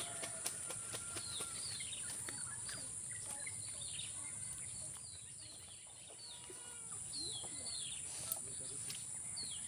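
Small birds chirping over and over, short quick chirps that fall in pitch, over a steady high-pitched whine.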